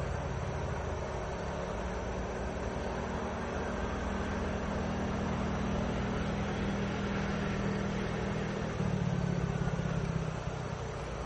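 Diesel locomotive engine running steadily with a low hum, growing louder for about a second and a half near the end.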